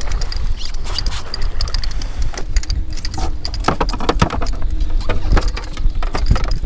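Wind rumbling on the microphone, with irregular clicks, knocks and rattles as a fish is netted and the landing net is handled on the fibreglass boat deck.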